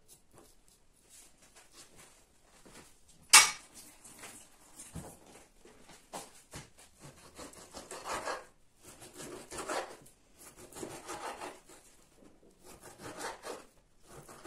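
Kitchen knife cutting raw meat on a wooden cutting board: the blade scrapes against the wood in short runs of repeated strokes, with one sharp knock about three seconds in, the loudest sound.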